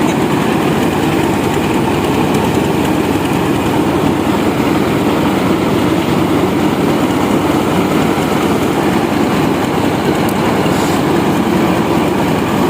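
Diesel-powered mobile rice mill running steadily while milling rice, its engine and milling machinery making a loud, even drone.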